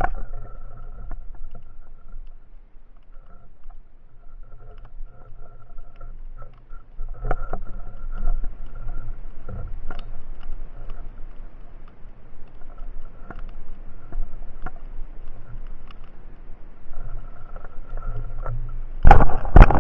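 Motorboat engine and propeller hum heard underwater, coming and going as a steady drone with scattered sharp clicks. There is a loud burst of noise near the end.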